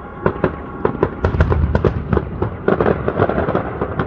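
Fireworks going off in a rapid barrage: many sharp cracks and bangs, several a second, over a continuous low rumble that swells about a second and a half in.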